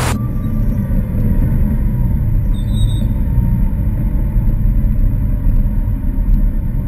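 Motor vehicle engine running close by: a steady low rumble.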